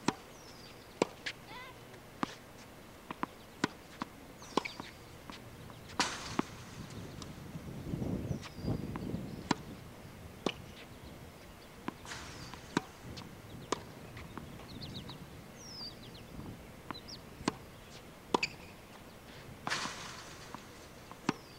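Tennis ball being hit by a racket and bouncing on a hard court: a long series of sharp pops, about one a second, some in quick pairs. Birds chirp briefly in the background.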